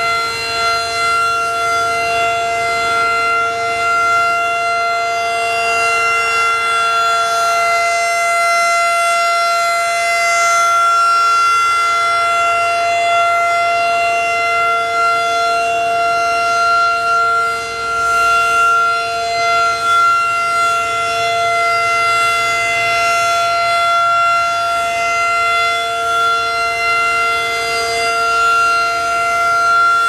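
Federal Signal 2001 DC electromechanical tornado siren sounding a steady tone at a fixed pitch during a test, its loudness swelling and easing slightly as the horn rotates.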